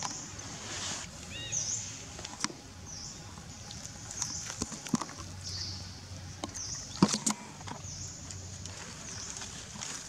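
Outdoor ambience of a high chirp repeating about once a second, with scattered crackles of dry leaf litter as the macaques move. The sharpest crackle comes about seven seconds in.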